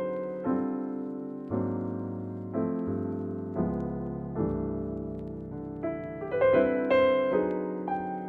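Background piano music: slow, gentle chords and single notes, each struck and left to fade.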